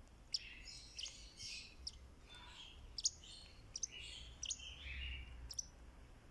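Fischer's lovebird chirping and chattering: a run of sharp, high chirps mixed with scratchy chatter.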